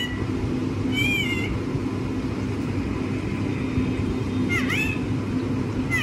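Rose-ringed parakeet (Indian ringneck) giving short, high, rising-and-falling squawks a few seconds apart, over a steady low hum.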